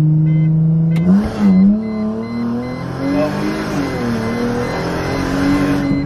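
Mercedes SLK32 AMG's supercharged V6 at full throttle, heard from inside the cabin. About a second in the engine note jumps and wavers briefly, then climbs steadily with a loud rushing noise over it, and it drops sharply near the end. The supercharger, fitted with a 65 mm clutchless pulley, is making about 16 psi of boost.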